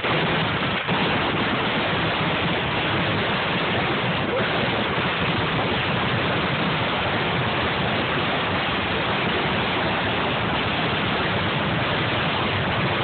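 Ground-level fireworks fountains spraying sparks at close range, making a dense, continuous hiss and crackle that blurs into one steady rush of noise with no separate bangs standing out.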